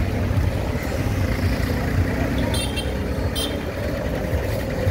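Steady low rumble of vehicle engines and road traffic, with two short high-pitched sounds a little past the middle.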